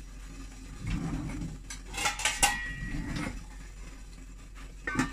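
Stainless steel kitchenware clinking against a steel kadai: a few sharp metal knocks about two seconds in, one ringing briefly, and another near the end.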